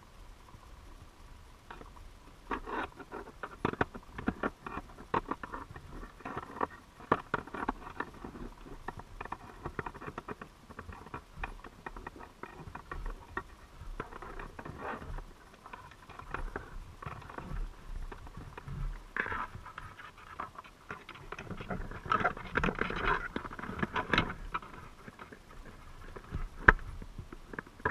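Irregular underwater clicks, taps and crackles picked up by a camera in a crab trap, with denser, louder scraping knocks a few seconds before the end.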